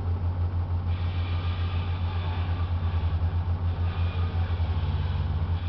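Engine-driven equipment of a concrete saw-cutting job, with slurry vacuum and water pump, running together as a low throbbing drone. A higher hiss comes in about a second in and drops away near four seconds, and the throb quickens near the end.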